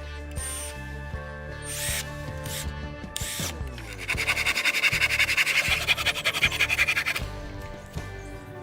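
Background music with steady tones. For about three seconds in the middle, a loud, rapid, rhythmic rasping or rubbing sound plays over it.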